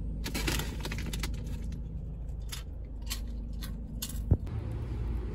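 Newspaper wrapping on a bundle in a cloth tote bag rustling and crinkling in short bursts, with a soft thump about four seconds in, over a low steady rumble.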